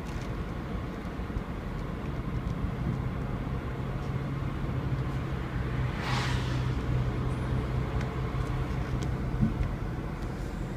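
Car driving along a road, heard from inside the cabin: steady engine and tyre noise with a low, even hum. A brief hiss rises and fades about six seconds in.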